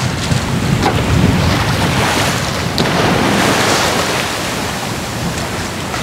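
Wind buffeting the microphone over the rushing wash of water along the hull of a Westsail sailboat under sail, with waves breaking beside it. The water noise swells in the middle.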